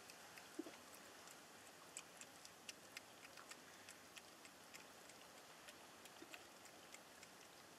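Faint, irregular crisp clicks, about three or four a second, over a low hiss: a cat crunching dry food.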